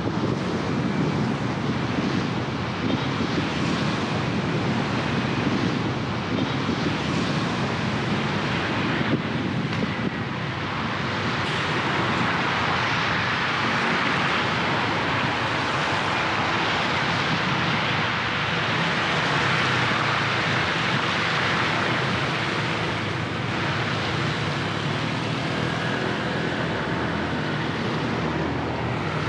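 Road traffic on wet pavement after heavy rain: a steady low rumble of engines with a broad hiss of tyres on the wet road, the hiss growing stronger about ten seconds in.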